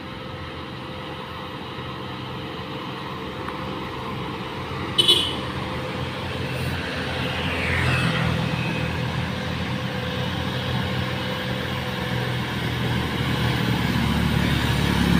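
Diesel engine of a Mercedes-Benz tank-container truck labouring uphill, growing steadily louder as it approaches. There is a brief high beep about five seconds in.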